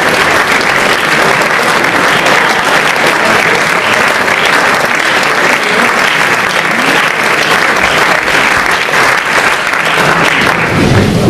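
Theatre audience applauding steadily, a dense, even clapping that holds its level throughout.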